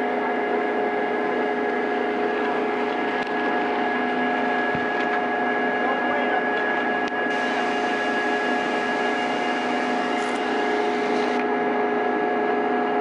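Steady mechanical hum: several constant tones held over a dense rushing noise, unchanging in level throughout.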